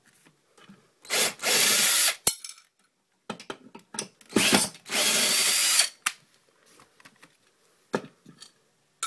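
Power drill running in two bursts, about one second and then about two seconds long, driving out the mounting screws of a meter socket. A few short clicks follow near the end.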